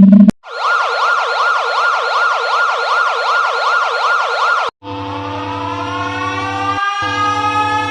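Emergency alert alarm tones. An electronic siren tone wails up and down quickly, about three sweeps a second, for about four seconds and cuts off abruptly. It is followed by a held, buzzy alarm tone with many overtones, some of which slowly slide upward.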